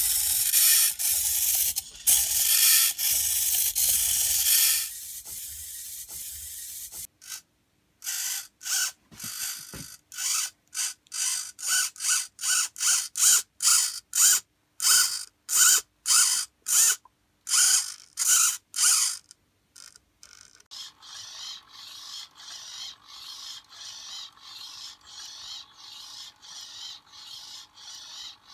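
Hobby servo motors in a 3D-printed InMoov robot head whirring as they drive its plastic gears and linkages. First comes a few seconds of continuous whirring, then a string of short stop-start bursts about two a second, and quieter repeated bursts near the end.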